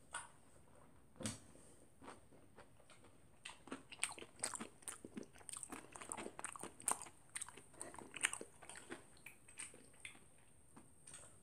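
Crunchy chocolate cereal squares in milk being chewed close to the microphone: a dense run of short, crisp crunches through the middle of the stretch, after two sharper clicks near the start.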